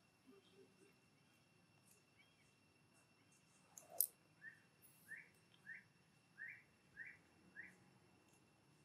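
A run of about seven short, high chirping calls, roughly half a second apart, starting a little after the middle, with a single sharp click just before them. A faint steady high tone sits underneath.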